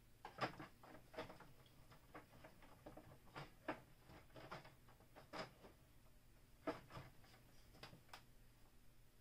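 Faint, irregular clicks and taps of hard plastic toy parts being handled and fitted together as the 1978 Kenner Death Star playset is assembled, about ten in all.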